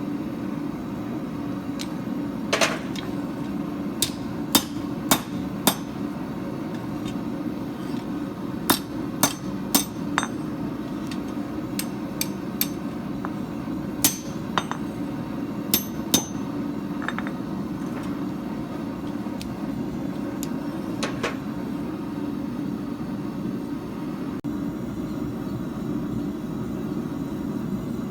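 Hammer striking steel on an anvil while forging a knife blade: single blows at uneven spacing, some with a short metallic ring, most in the first half and one more later. Under the blows runs a steady low rush of noise.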